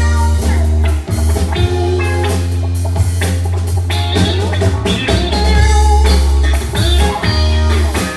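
Instrumental band music: guitar over a drum kit and a strong, steady bass line, with no singing.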